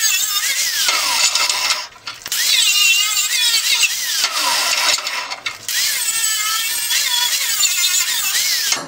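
Angle grinder with a wire wheel brushing a steel tube, its high whine wavering in pitch as it bites into the metal and dropping away briefly twice, about two seconds in and again about five and a half seconds in.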